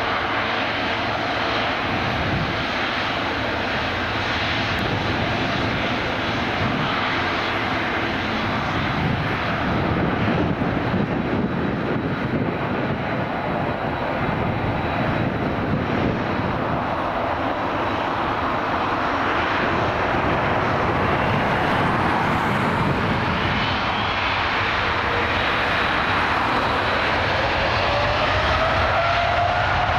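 Boeing 777-300ER's GE90 turbofan engines running as the airliner rolls on the runway, a steady dense jet rumble. About three quarters of the way through, a rising whine comes in as the engines spool up.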